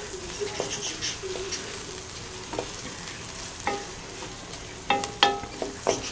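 Chopped onions sizzling as they fry in hot oil in a metal karahi, stirred with a wooden spatula. The spatula knocks against the pan several times, mostly in the second half, each knock ringing briefly.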